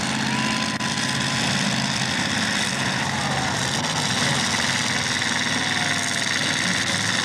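Several demolition derby cars' engines running together at a steady, idling pace.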